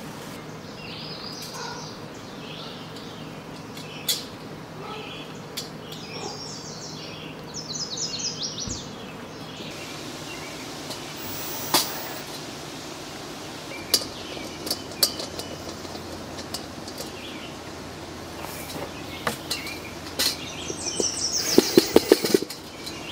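Small birds chirping off and on, with scattered sharp clicks and knocks from the metal parts of a bobber-style kettle grill being put together with a cordless drill. A quick run of louder clanks comes near the end.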